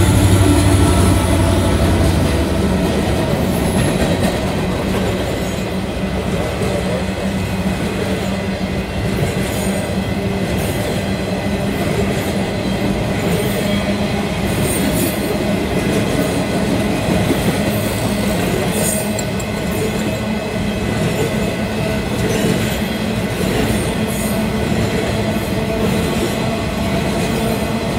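Freight train passing close by: the lead EMD SD70M diesel locomotive's engine drone fades over the first couple of seconds, then the cars roll by with a steady wheel rumble, clicking over rail joints and occasional wheel squeal.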